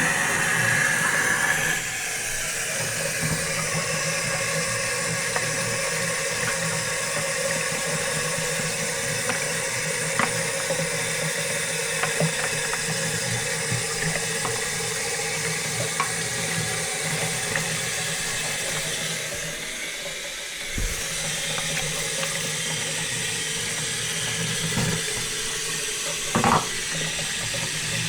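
Water running steadily, with a few light clicks and knocks scattered through it and a brief dip about two-thirds of the way in.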